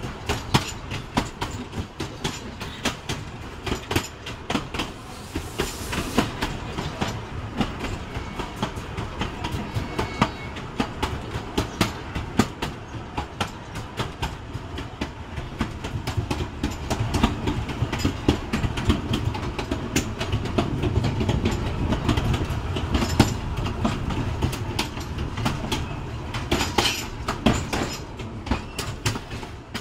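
Narrow-gauge railway carriage rolling along, its wheels clicking and clattering irregularly over the rail joints above a continuous low rumble.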